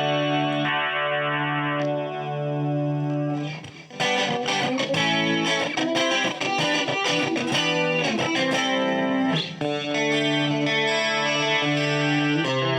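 Morgan Legend Series Strat-style electric guitar with an ash body, played on a clean tone: held chords ringing out, then from about four seconds in a busy passage of picked notes, settling back into sustained chords near the end.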